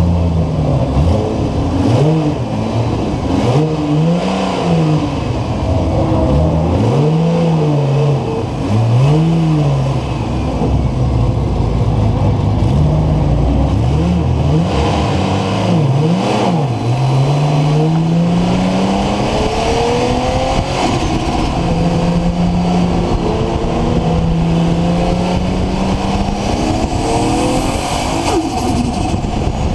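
Nissan RB26 2.6-litre straight-six with a Garrett GTX4088R turbocharger, revved up and down repeatedly, then a longer climb in revs that is held steady; a faint high whine rises near the end.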